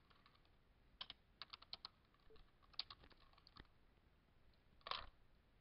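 Faint computer keyboard typing: a quick run of keystrokes between about one and four seconds in, then a single louder click near the end.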